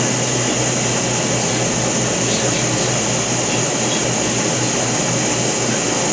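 Steady fan noise: a constant hiss with a low hum underneath, unchanging throughout.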